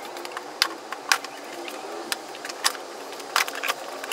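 Plastic front bumper cover of a 2010 Cadillac CTS Wagon being pulled off by hand: a handful of sharp snaps and clicks as its tabs and clips let go, two of them in quick succession near the end, over a faint steady hum.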